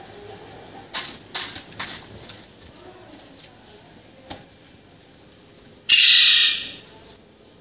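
A bird calls once, loudly, about six seconds in, for under a second. A few short, quieter noises come about a second in.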